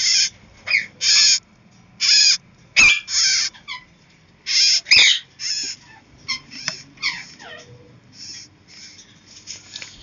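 Caged aviary birds giving short, harsh screeching calls in quick succession, loud in the first half and fainter later, some bending up and down in pitch. Two sharp knocks come about three and five seconds in.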